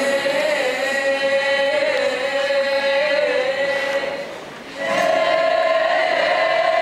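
A group of voices singing together: one long held note, a short break about four and a half seconds in, then a second, slightly higher held note.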